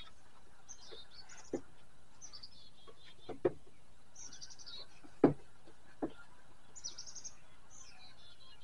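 Birds chirping in short repeated bursts, with a few sharp knocks and clicks in between, the loudest a little past halfway.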